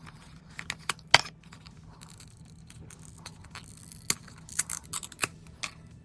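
Packaging of a kettle corn popcorn seasoning being opened by hand: an irregular string of sharp plastic crackles and clicks, the loudest about a second in and again about four seconds in.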